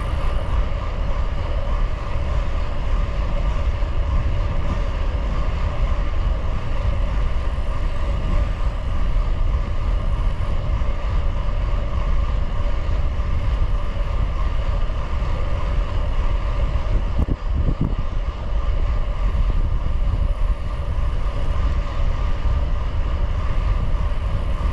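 Wind rushing over the microphone of a gravel bike ridden fast, a heavy low rumble with a steady hum running through it.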